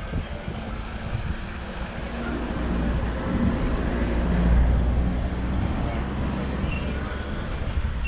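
A motor vehicle passing, its low engine rumble swelling to a peak about halfway through and then easing off. A short, high rising chirp repeats about every two and a half seconds.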